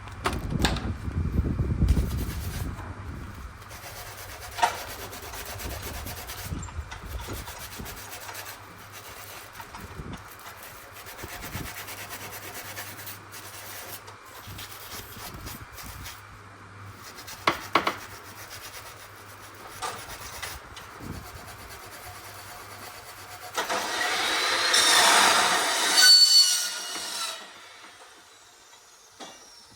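Workshop cutting and scraping: a tool cutting and rubbing on material, with a few sharp knocks, and a louder harsh cutting stretch with a ringing screech near the end.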